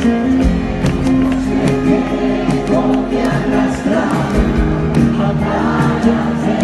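Live band music in concert, with steady held chords, regular drum strokes and a sung vocal line.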